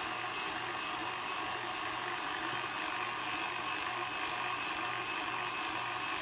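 KitchenAid stand mixer motor running steadily, driving the food grinder and fruit strainer attachment: a constant motor hum and gear whine with a faint, regular low throb. It is running light, before any apple is fed through.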